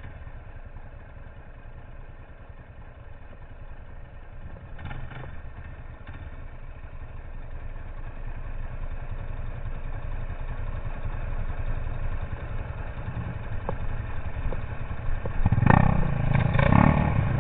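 Enduro motorcycle engine running, a low rumble that grows steadily louder, with a few louder bursts near the end.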